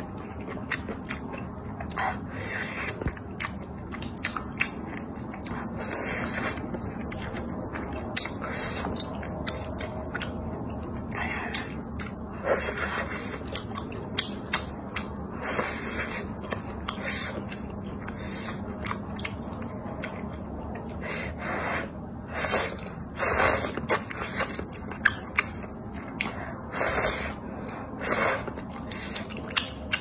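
A person slurping and chewing food from spicy broth: many short, wet slurps and mouth sounds, coming more often and louder in the last third.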